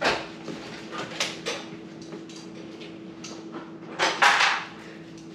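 Gear being handled and packed into luggage: a few knocks and rustles, then a louder scraping rustle lasting about half a second around four seconds in, over a steady low hum.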